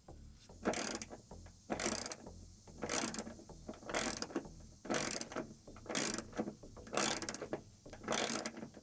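Ratchet wrench tightening a 10 mm bolt into a plastic wheel well liner's J-clip: a rapid burst of ratchet clicks on each stroke, about one stroke a second, eight times.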